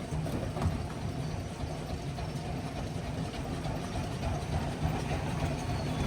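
Heavy crushing machinery running with a steady low drone and faint scattered knocks.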